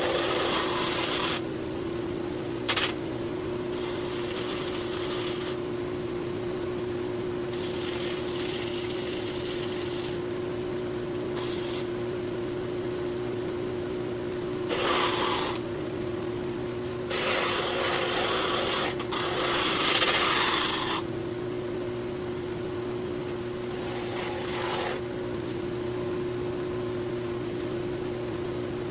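Cloth rubbing over a wooden handle in intermittent strokes of one to three seconds, working in tung oil and turpentine finish, over the steady hum of a running machine motor.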